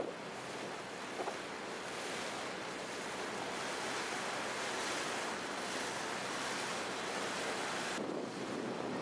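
Steady rushing of wind and water aboard a moving river boat, with wind on the microphone. The hiss turns lower and duller about eight seconds in.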